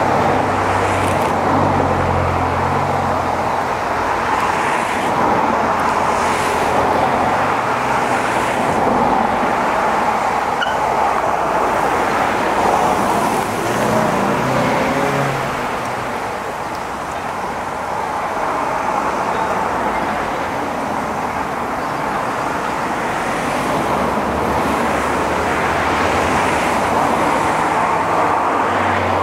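A steam-hauled goods train rolling past, with a steady noise of wagon wheels on the rails. It dips a little in loudness about halfway through and picks up again towards the end.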